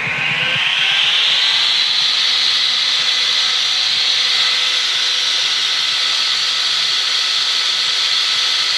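Homemade stone-cutting saw's electric motor spinning its diamond disc up to speed: a whine that rises in pitch over the first second or so, then holds steady at full speed.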